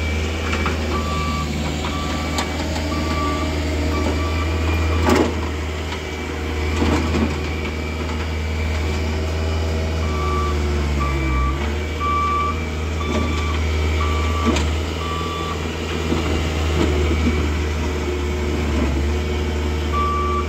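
Bobcat S450 skid-steer loader working a gravel pile: its engine runs steadily while its reversing alarm beeps about once a second in three spells as it backs up. A few sharp clanks come from the machine, the loudest about five seconds in.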